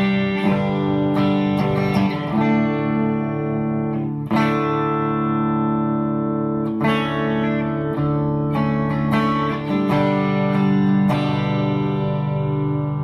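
Les Paul electric guitar on its bridge pickup played through a Bad Cat Bobcat 5R tube combo amp set clean, gain at noon, with a little reverb: a bright clean tone, chords left to ring and changed every second or two.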